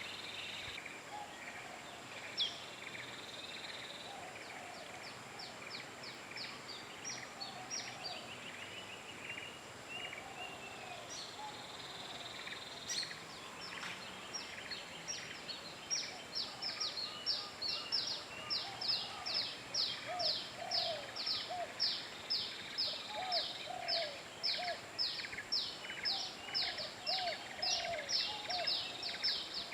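Outdoor ambience with birds calling: a rapid series of high, downward-sweeping notes that repeat about twice a second and grow louder in the second half, over softer lower chirps and a steady background hiss.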